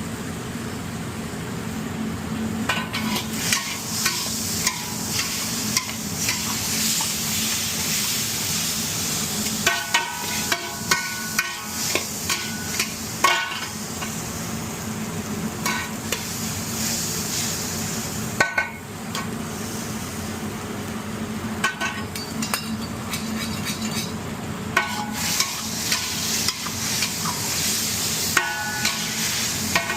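Food sizzling as it fries in a pan while it is stirred, with a metal utensil scraping and clinking against the pan; the clinks now and then ring briefly.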